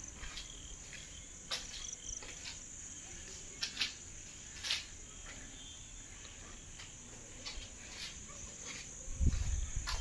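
Crickets trilling in a steady high-pitched drone, with a few scattered clicks and a low rumble near the end.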